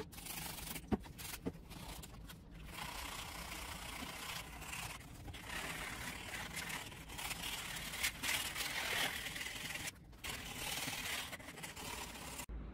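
A small pad rubbing back and forth over a wet, rust-pitted metal license plate, a scratchy scrubbing that comes and goes with the strokes, with two sharp clicks about a second in.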